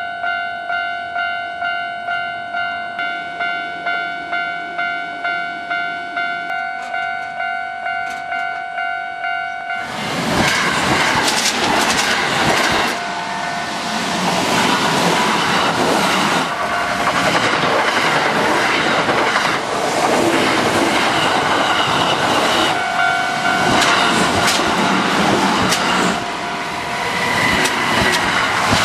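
Japanese level-crossing warning bell ringing in a steady, evenly pulsing rhythm. About ten seconds in, a Kintetsu Osaka Line electric train passes loudly, its wheels clacking over the rail joints while the bell keeps ringing beneath it.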